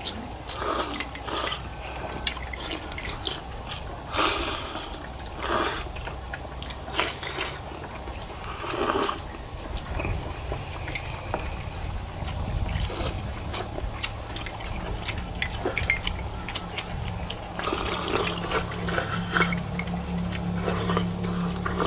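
Contestants slurping pho noodles and broth: irregular short slurps, each about half a second, with scattered small clicks. A low steady hum comes in about halfway through.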